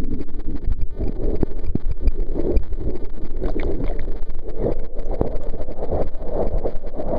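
Pool water churning and splashing against a camera held at the surface, a dull, continuous sloshing with irregular knocks as the camera dips in and out of the water.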